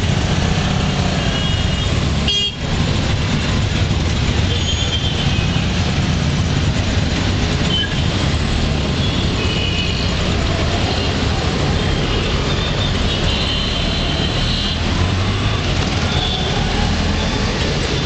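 Dense traffic horns: many short, high-pitched beeps every second or two, some overlapping. Under them runs the steady low rumble of a moving auto-rickshaw.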